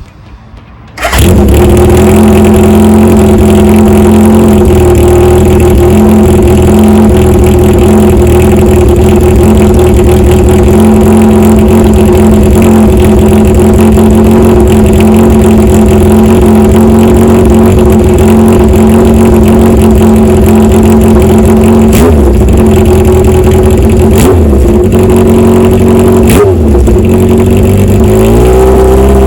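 Honda CB750 Four's air-cooled inline-four running through an MRS hand-bent 70 mm four-into-one exhaust with a racing baffle. The exhaust note comes in suddenly about a second in and stays very loud and steady, with brief rises and falls in pitch a few times in the last several seconds.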